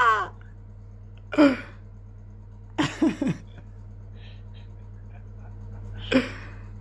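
Stifled laughter: a few short, muffled bursts of a man laughing into his arm, one of them a quick run of three, over a low steady hum.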